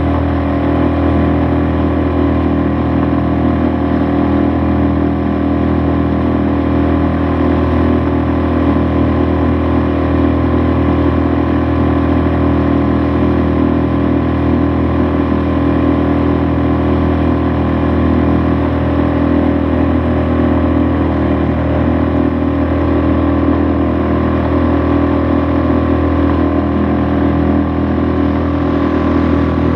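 Suzuki 2.5 HP four-stroke single-cylinder outboard motor running steadily at constant cruising speed, pushing a small rowboat.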